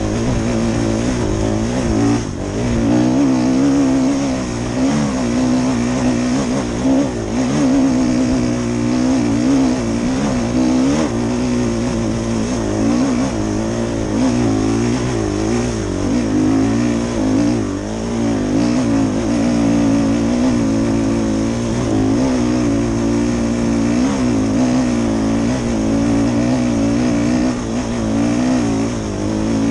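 Dirt bike engine running under load on a steep climb, its revs rising and falling over and over as the throttle is worked.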